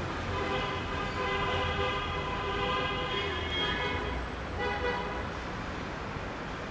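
A long, steady horn blast lasting about four seconds, then a short second blast, over a bed of traffic noise.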